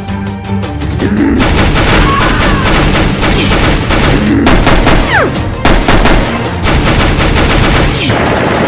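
Rapid, sustained machine-gun-style gunfire, starting about a second in, over background music.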